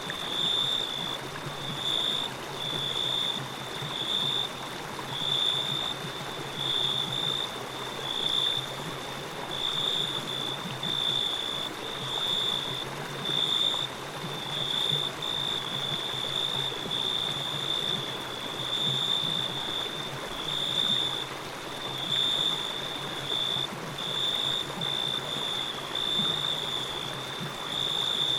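Running stream water, with a steady high-pitched chirring tone over it that swells and fades every second or two.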